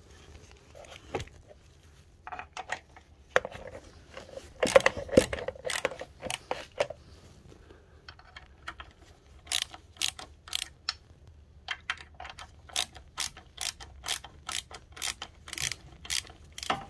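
Hand tools working on a scooter's variator pulley nut: a clatter of metal knocks, then from about halfway a steady run of sharp ratchet-like clicks, about three a second.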